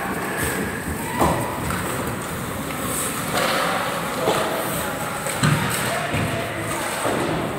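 Ice hockey play on a rink: skates scraping the ice and sticks and puck knocking, with two louder thuds, about a second in and again about five and a half seconds in, over distant voices calling.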